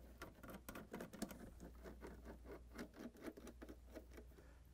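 Faint, irregular small clicks and scratches of screws being handled and driven into a dishwasher door with a hand Phillips screwdriver.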